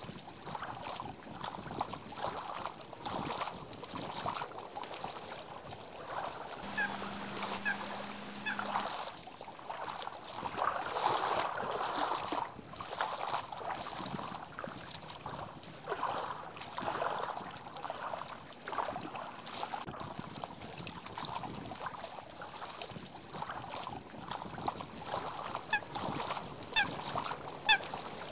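Wild geese honking, many calls overlapping and repeated throughout. Near the end, sharper high-pitched calls break in and are the loudest sounds, and a brief low steady hum sounds about a quarter of the way in.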